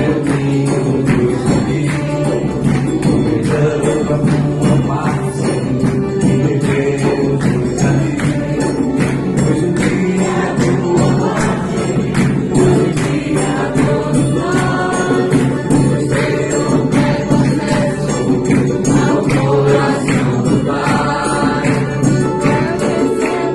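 Gospel music: voices singing together over a steady beat with a jingling tambourine.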